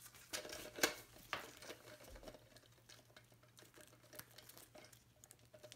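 Faint handling noise of nitrile-gloved fingers on a plastic Fluidmaster 400A fill valve, rubbing and ticking as a rubber shank washer is worked up its threaded shank. A few sharp clicks stand out in the first second and a half.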